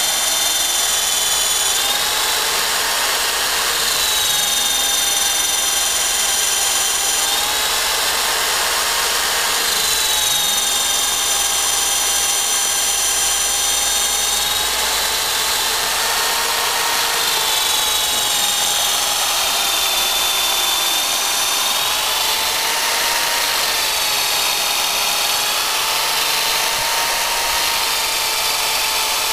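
Cordless drill running steadily, its bit boring a tap hole into a maple trunk for sap. The motor's whine wavers slightly up and down in pitch as the bit bites and eases.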